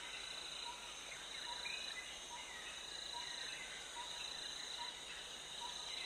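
Faint nature ambience of insects trilling in one steady high tone, with a short lower note repeating about once a second and a few faint chirps.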